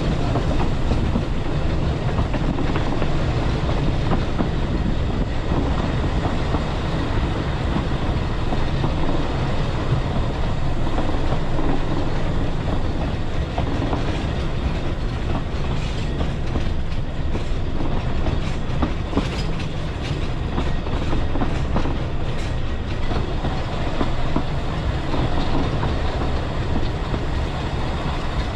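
Carriage of the narrow-gauge Talyllyn Railway running along the track: a steady rumble of wheels on rails, with a run of clicks in the second half.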